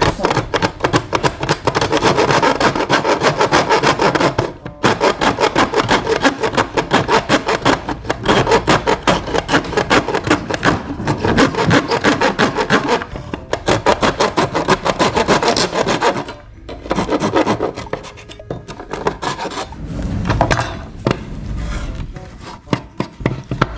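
Hand filing: fast, even back-and-forth strokes of a file rasping down material to trim a battery adapter by about 2.7 mm. There is a short pause about four and a half seconds in. After about sixteen seconds the strokes become sparser and broken.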